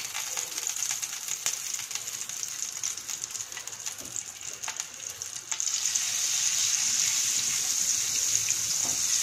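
A cube of butter melting in hot oil in a nonstick frying pan, sizzling with scattered crackles; the sizzle grows louder about halfway through as the butter foams.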